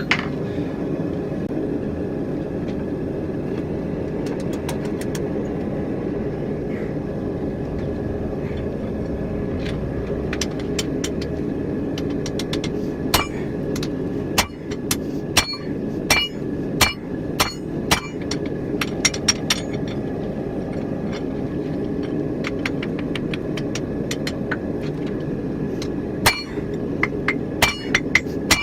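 Hand hammer blows ringing on hot steel and anvil while a rounding hammer head is forged: a few scattered strikes, then a run of quicker strikes from about halfway in and another run near the end. Under the strikes a steady rushing noise carries on.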